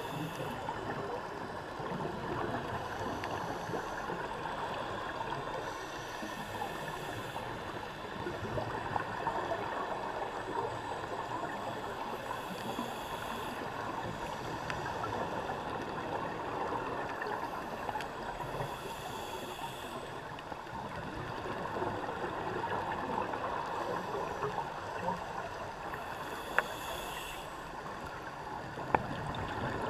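Underwater sound of scuba breathing: a steady bubbling, rushing wash of water with a hiss from the diver's regulator returning about every six seconds. A few sharp clicks come near the end.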